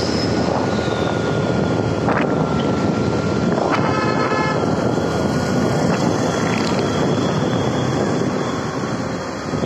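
Steady wind rush on the microphone and street traffic noise from moving along a busy road, with a vehicle horn sounding briefly about four seconds in.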